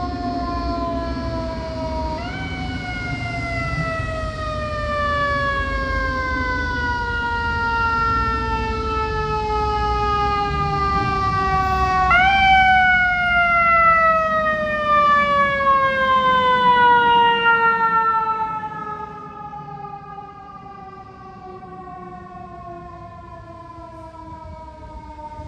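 Siren of a Chicago Fire Department ladder truck on an emergency run: it jumps up sharply in pitch about two seconds in and again about twelve seconds in, each time winding slowly down over about ten seconds, and starts another rise at the very end. Under it a low road rumble runs loud through the middle and drops away in the last several seconds.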